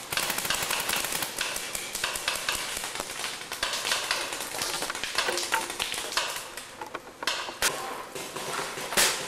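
Paintball markers popping in rapid, irregular volleys, mixed with knocks and rustling from the camcorder being carried through brush. Two louder pops stand out near the end.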